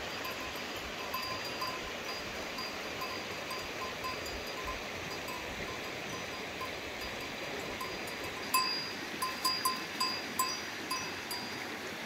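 Goat bells clinking irregularly as goats move and graze, the same few ringing notes repeating over a steady background rush. About two-thirds of the way through the bells get louder and closer, with a run of quick clanks.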